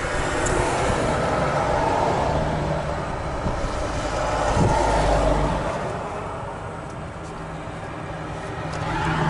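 GAZelle Next van's engine idling, heard close up in the open engine bay, with a steady hiss from somewhere in its propane (LPG) system. The hiss and a strong smell of gas point to a leak in the gas equipment, which stalls the engine whenever it is switched over to propane.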